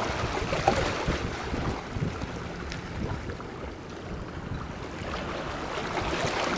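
Small sea waves lapping and washing against shoreline rocks, with wind buffeting the microphone in an irregular low rumble.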